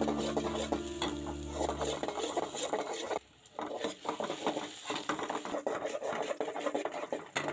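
A metal spoon stirs and scrapes sliced onions frying in oil in a metal pot, with the oil sizzling. A steady low hum runs under it for about the first two seconds.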